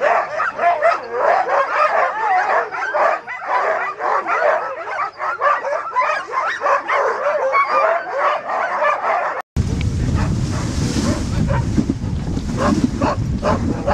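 A team of hitched sled dogs yelping, yipping and howling all together in a continuous excited din. After a sudden cut about two-thirds in, wind rumbles on the microphone as the sled runs behind the team, with only a few faint yips left.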